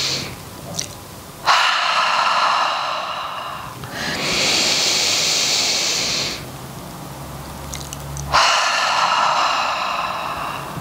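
A woman breathing slowly and deeply in a yogic breathing exercise: long inhalations through the nose alternating with audible exhalations blown out through the mouth, two full breath cycles.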